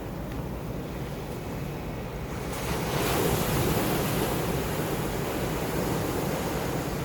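Sea surf breaking and washing on the shore, growing louder about two and a half seconds in as a wave comes in, with a low rumble of wind on the microphone.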